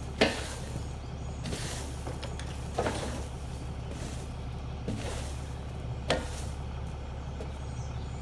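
Push broom sweeping wood chips and bark debris across a wooden trailer deck: about five scraping strokes, a couple of them starting with a sharp knock, over a steady low hum.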